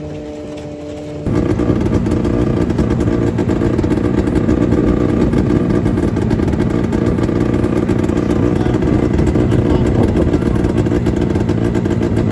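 Snowmobile engine running close by. For about the first second there is a steady, softer hum, then the engine sound jumps abruptly to much louder and continues steadily.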